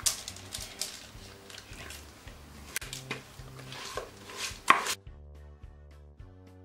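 Silicone spatula scraping thick semolina batter out of a plastic bowl into a cake pan, with wet scrapes and a few sharp knocks. About five seconds in the kitchen sounds cut off abruptly, leaving only soft background music.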